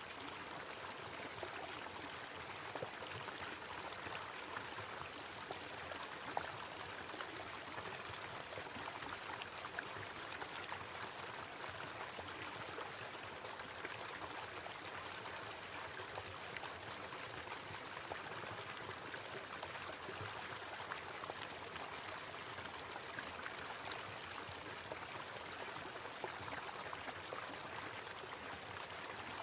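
Small waterfall splashing steadily, a continuous rushing of falling water.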